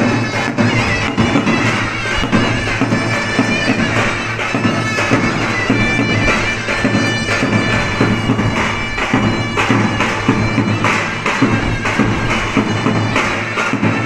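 Wedding dance music: a shrill, reedy wind instrument playing a melody over a steady drum beat.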